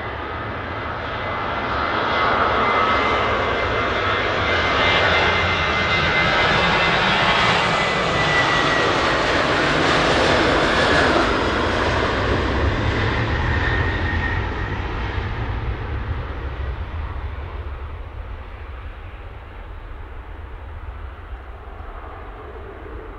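Boeing 737-800's two CFM56-7B turbofan engines at takeoff power as the jet rolls down the runway and past. The noise swells as it comes by, with a high fan whine that drops in pitch as it passes, then fades as the aircraft climbs away.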